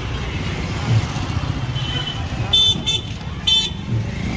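Busy fair ambience: a steady low rumble of crowd and traffic, broken by three short, high-pitched, buzzy toots in quick succession about two and a half seconds in.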